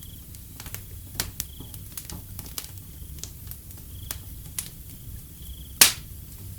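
Wood fire crackling: scattered sharp snaps and pops over a low steady rumble, with one loud pop near the end. A short, high chirp repeats about every second and a half behind it.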